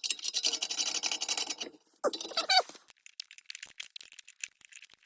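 Rapid rattling clicks from hand tools at work for about a second and a half, then a brief voice-like sound and a few scattered light clicks.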